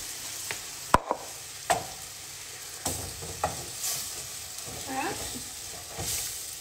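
Bacon and cream sizzling in a frying pan while a wooden spoon stirs, with a few sharp knocks of the spoon against the pan.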